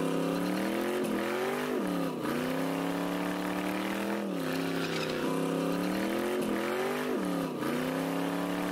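Car engine held at high revs during a burnout, its pitch dipping briefly and recovering several times, over the noise of a rear tire spinning in smoke.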